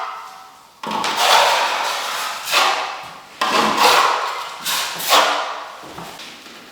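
A short knock, then about five long rasping strokes in a row, each roughly a second long, like a hand tool scraped or rubbed across a hard surface.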